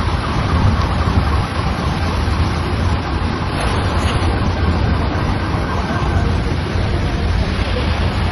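Fast-moving floodwater rushing down a street: a loud, steady rush with a heavy low rumble.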